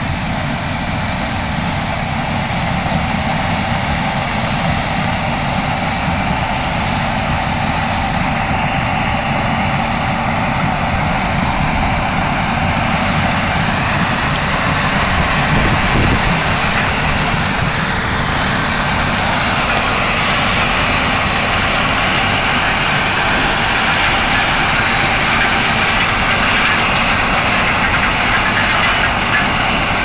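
Claas Lexion 760 Terra Trac combine harvester running under load while harvesting corn: a steady, dense mechanical rush of engine and threshing that grows slightly louder as the machine comes closer.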